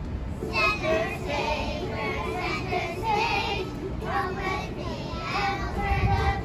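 A group of young children singing together, beginning about half a second in.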